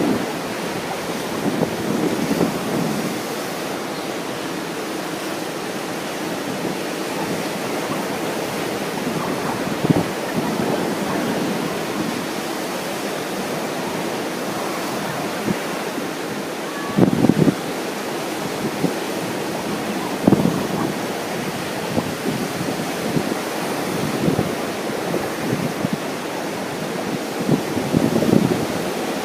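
Ocean surf washing steadily, with strong wind buffeting the microphone in several gusts, the strongest about two-thirds of the way through and near the end.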